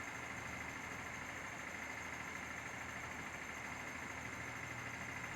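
A steady mechanical hum with hiss and a faint high whine, unchanging throughout.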